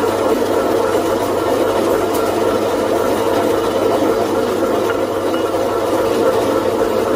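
Stainless-steel electric meat slicing machines running steadily, their motors and spinning blades giving an even whirring hum with a low electrical hum beneath.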